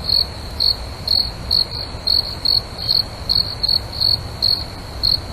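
Crickets chirping in a night ambience: a steady high trill with louder chirps about two to three times a second, over a low steady rumble.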